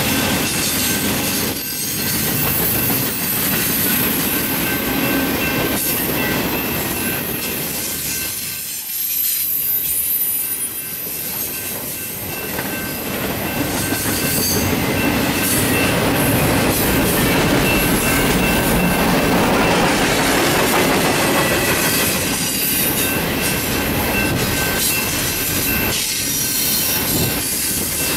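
Double-stack intermodal freight cars rolling past: a steady rumble of steel wheels on rail with a thin, high-pitched wheel squeal over it, dipping briefly and then growing louder about halfway through.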